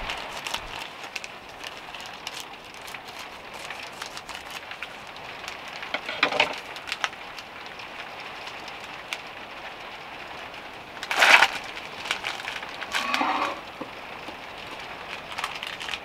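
Steady rain falling on the van's roof, with short crinkling rustles of plastic packaging being handled three times, the loudest about eleven seconds in.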